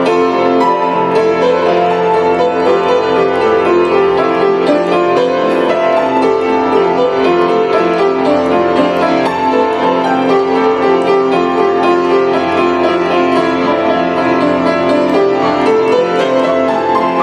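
Grand piano played with both hands: a continuous, dense run of notes with no pauses.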